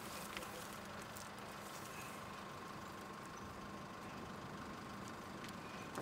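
Faint steady hum with a couple of light clicks.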